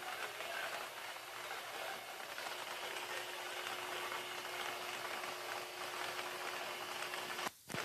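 Air-mix lottery ball machine running: its blower motor hums steadily while the air throws the light numbered balls about inside the clear chambers, and they clatter against the walls. The sound cuts out for a moment near the end.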